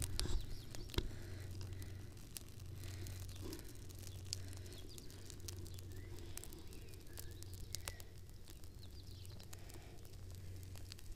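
Freshly lit upside-down campfire of split wood crackling, with scattered sharp pops, the loudest about a second in, over a steady low hum.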